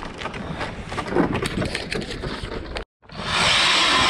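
Footsteps crunching and clicking on thin frosty lake ice. Then, after a brief break, a battery-powered ION electric ice auger starts drilling and runs loud and steady, its bit grinding through about 3 inches of first ice and throwing out chips.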